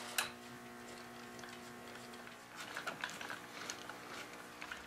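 Faint sounds of a screw being driven by hand with a screwdriver into a wooden leg-and-stretcher joint: one light knock near the start, then soft irregular clicks from about two and a half seconds in, over a low steady hum.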